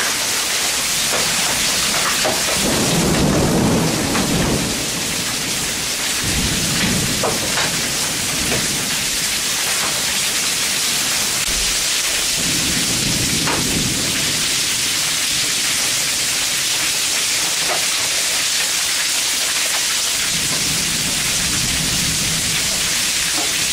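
Heavy rain falling steadily during a summer thunderstorm, with scattered drops ticking. Several low rolls of thunder come through, the loudest about three seconds in, then others around seven, thirteen and twenty-one seconds in.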